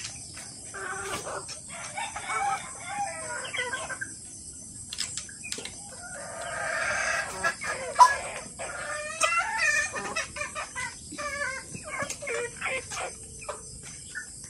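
Kelso gamefowl roosters crowing and hens clucking, with one longer crow about halfway through. Scattered sharp ticks run underneath, the loudest about halfway through.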